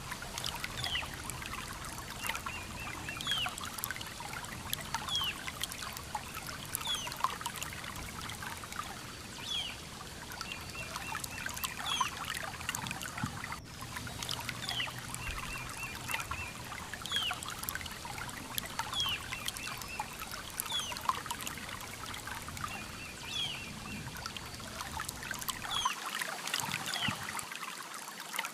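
River water trickling and flowing steadily, with a bird giving a short falling whistled call every second or two and a few brief trills in between.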